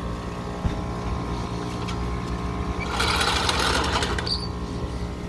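Motor humming steadily, with a single click just under a second in and a rush of hissing noise about three seconds in that lasts about a second.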